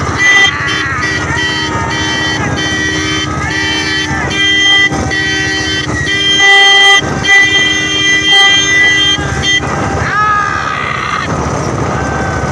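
Vehicle horns honking over and over in short and longer blasts, over a steady engine and wind rumble from motorcycles following a racing bullock cart, with shouting mixed in. The honking stops about ten seconds in, leaving the rumble and shouts.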